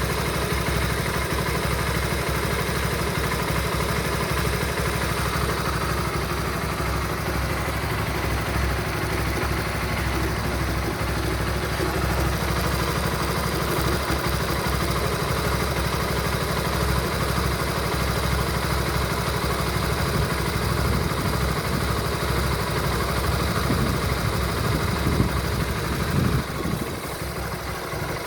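Honda Supra GTR 150's single-cylinder 150 cc engine running steadily at idle, carrying the weird engine noise that the owner cannot explain and is asking help with.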